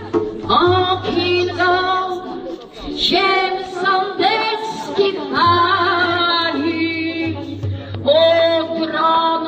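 Voices singing a hymn, mostly women's voices, with a string of held notes.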